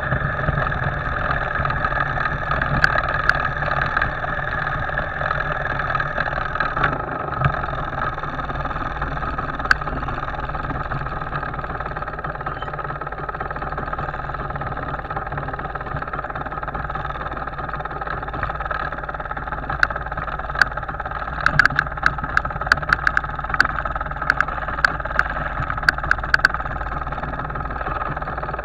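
MZ two-stroke motorcycle engine running steadily at low revs as the bike is ridden slowly, heard from a handlebar-mounted camera. Near the end a run of sharp clicks and rattles comes over it as the bike crosses a rough grassy track.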